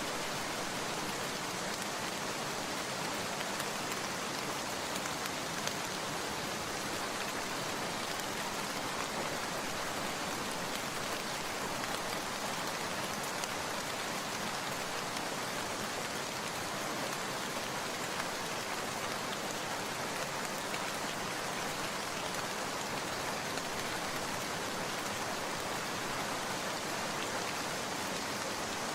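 Steady rain falling: an even hiss dotted with fine raindrop taps, unchanging in strength.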